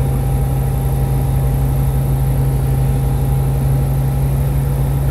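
Engine and propeller of a light single-engine aircraft running steadily in flight, heard from inside the cockpit as a loud, even low hum that does not change.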